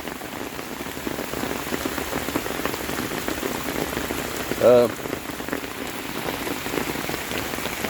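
Heavy rain falling and pattering on surfaces: a steady hiss made of countless small drop hits. A short voiced sound breaks in about five seconds in.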